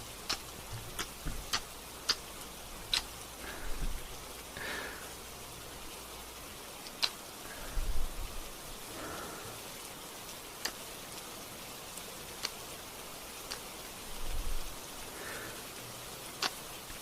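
Steady gentle rain, with scattered sharp clicks and three softer swells rising out of it.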